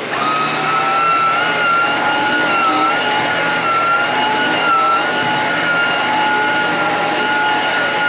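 Hoover Zen Whisper canister vacuum running with its power brush nozzle pushed over carpet: a steady rush of air under a high motor whine that wavers slightly in pitch.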